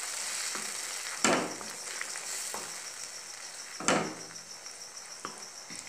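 Tomato pizza sauce sizzling in a nonstick pan as a wooden spatula stirs and scrapes through it, with two sharp knocks of the spatula against the pan, about a second and about four seconds in.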